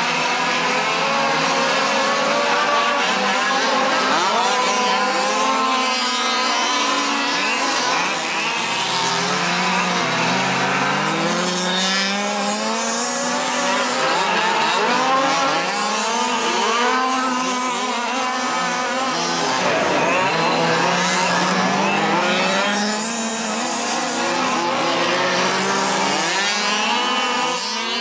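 Several fifth-scale RC dirt modified race cars' small two-stroke petrol engines buzzing at once, many overlapping pitches rising and falling as the cars accelerate and lift off.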